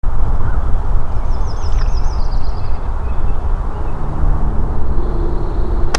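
Wind buffeting the microphone in a steady rumble, with a bird singing a short warbling trill that steps down in pitch about a second in.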